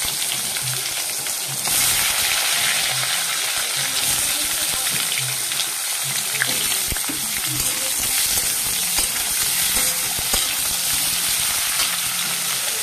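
Sliced eggplant and potato sizzling steadily in hot oil in a wok. The sizzle gets louder about two seconds in as more pieces go in, and a spatula stirs them near the end.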